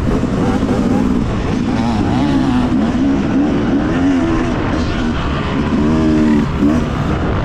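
Yamaha motocross bike engine under load on a dirt track, its pitch rising and falling repeatedly as the throttle is worked and the bike shifts.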